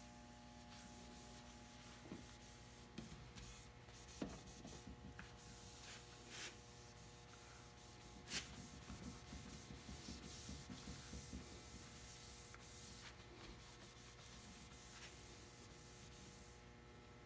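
Faint, steady rubbing of a soft paper towel working polishing compound over a varnished wooden hull, with a few light clicks.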